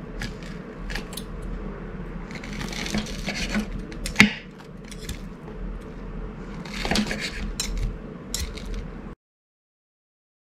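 Knife and fork cutting through a crispy deep-fried breaded pork cutlet on a plate: crackly crunching of the breading in two stretches, with scraping and cutlery clicking on the plate. The loudest sharp clink comes about four seconds in.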